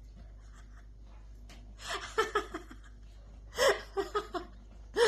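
A toddler's voice: three short bursts of high-pitched babbling vocalization without words, the first about two seconds in.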